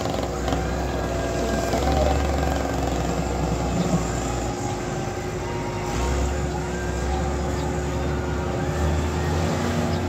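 Diesel engine of a heavy road-construction machine running steadily, its low hum swelling and dipping every few seconds as it works. Near the end a passing van's engine and tyres come in.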